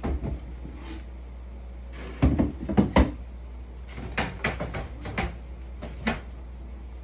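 Irregular knocks and clatters from enclosure parts being handled and fitted during assembly, coming in several short clusters, loudest about two to three seconds in.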